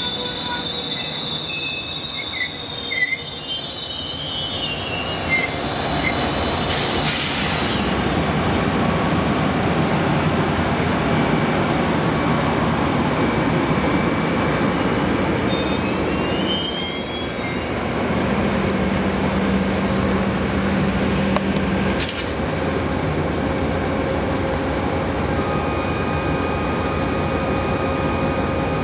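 Amtrak passenger train of double-deck Superliner cars passing close by, with a steady rumble of steel wheels on rail. High-pitched wheel squeal rises over it in the first few seconds and again a little past halfway.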